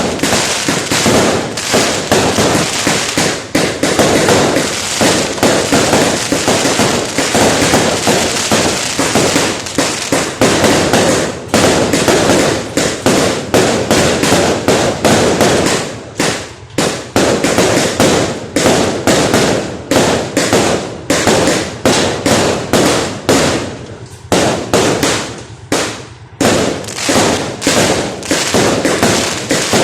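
Fireworks going off in a dense, continuous barrage of rapid bangs and crackles. A few brief lulls fall in the second half.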